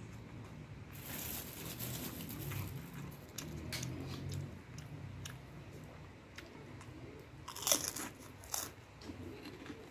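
A person chewing a mouthful of fried rice vermicelli close to the microphone, with crunches and wet mouth clicks scattered through. The sharpest crunches come about eight seconds in.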